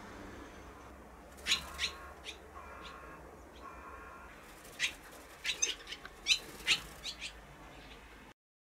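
Barn swallows giving short, sharp chirps: a few around a second and a half in, then a quick run of them from about five to seven seconds in.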